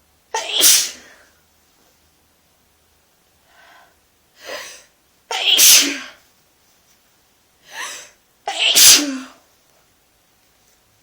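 Three loud sneezes in a row from a person with a head cold, with shorter breaths drawn in between them.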